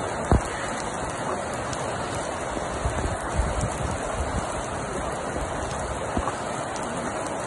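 Heavy rain pouring steadily. A single sharp knock comes about a third of a second in, and a few low thuds follow around the middle.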